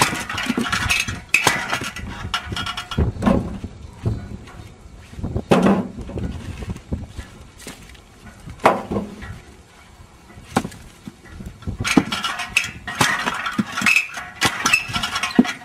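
Homemade lever-arm log splitter: the blade on its long pivoted arm chops down through short firewood logs on a block, with a sharp chop every couple of seconds and split pieces of wood clattering.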